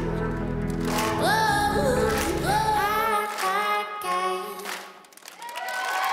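Pop song with a singing voice over a backing track. About three seconds in, the bass and beat drop out. The music dips briefly, then held chords swell near the end.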